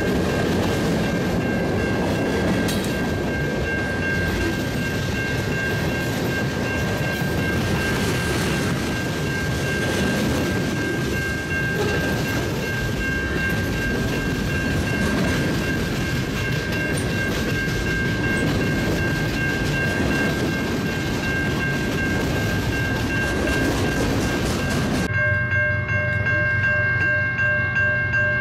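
Freight cars of a long train rolling past close by, steel wheels clattering and rumbling on the rails, with a steady high tone running through. About three seconds before the end the rolling noise stops abruptly, leaving several steady tones sounding together.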